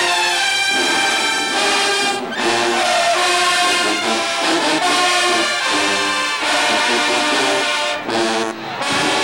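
Marching band brass section, with trumpets and sousaphones, playing a loud stand tune in short punchy phrases. The playing breaks off briefly about two seconds in and again near the end.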